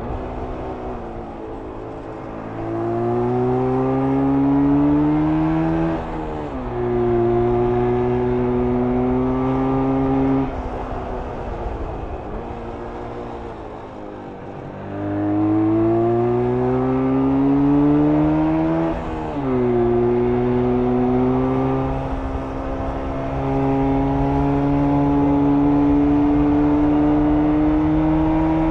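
1994 Jawa 350 two-stroke twin engine pulling through the gears under throttle: the pitch climbs, drops sharply at each upshift, about 6 and 19 seconds in, and sinks slowly while the throttle is closed for a few seconds in the middle before it pulls up again and holds fairly steady near the end.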